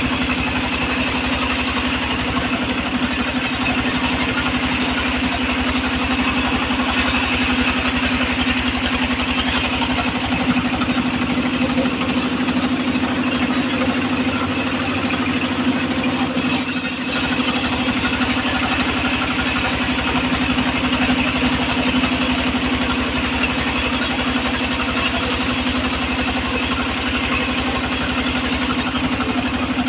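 Engine-driven home-built circular sawmill running steadily, its motor giving an even, continuous hum.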